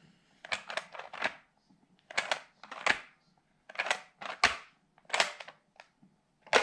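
Red plastic Play-Doh kitchen press clicking and rattling in short quick runs of clicks, a run about every second, as its lid is pressed down and lifted.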